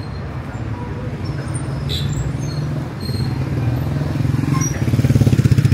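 Street traffic: motor-vehicle engines running on the road, one growing louder as it passes close near the end, with a few voices of passers-by.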